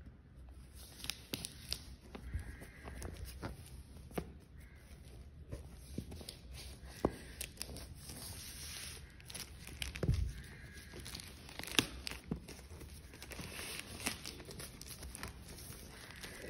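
A plastic courier mailer being cut and torn open, with crinkling plastic and scattered sharp snips, clicks and handling knocks.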